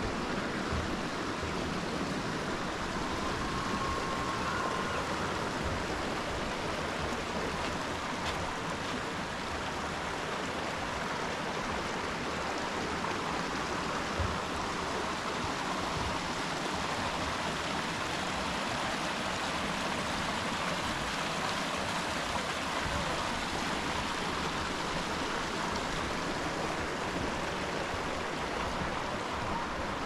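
Creek water flowing, a steady rushing.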